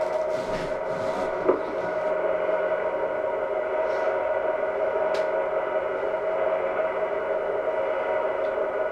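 Steady droning hum made of several fixed tones, with no speech, as from the playback of an old home-movie transfer. There is a short click about a second and a half in and another about five seconds in.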